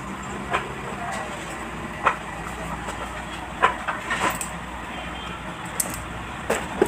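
Steady background hum with a handful of light knocks and clicks scattered through it, from a person moving about and sitting down on a concrete floor.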